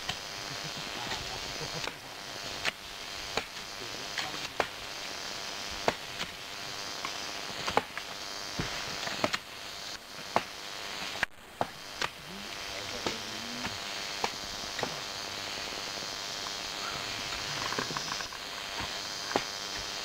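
Hand hoes striking dry earth and stones during manual digging: irregular sharp knocks, roughly one every second or so, over a steady high hiss.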